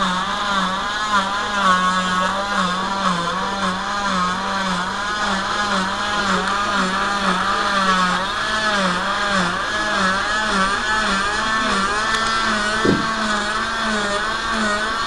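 Oscillating cast saw running against a fibreglass leg cast, a steady motor hum whose pitch dips and recovers about twice a second as the blade bites into the cast.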